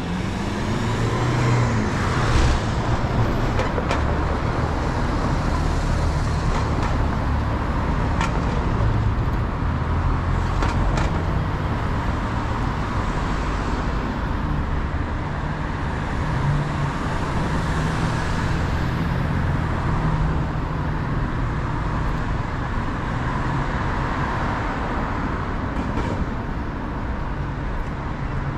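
City road traffic: cars passing close by, a steady rumble with a few brief sharp clicks.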